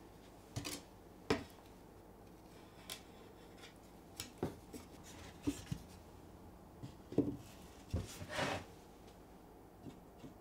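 Wooden boards being handled on a wooden workbench: scattered light knocks and clicks as they are set down and butted together into a glued box frame, with a few brief scrapes as they slide on the bench top.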